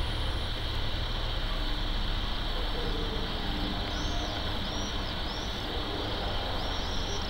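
Steady outdoor rumble and hiss with a constant high-pitched buzz. From about four seconds in, short bird chirps repeat roughly once a second.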